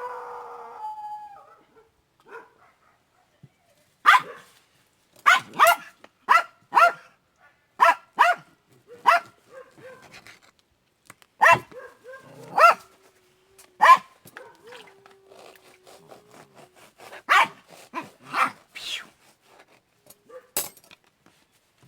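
A dog barking in short, sharp single barks, more than a dozen spread out with pauses between them, and a long low whine in the middle.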